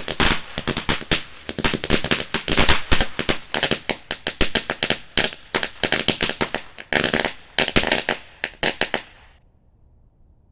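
Apache Fire Dance firework fountain spraying with dense, rapid crackling pops, which stop abruptly about nine seconds in as the fountain burns out.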